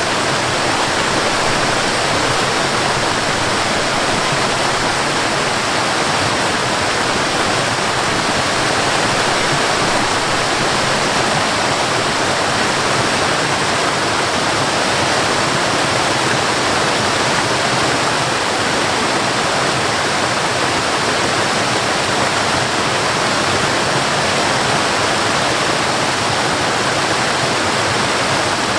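Cascading water, a small waterfall, rushing steadily and unbroken.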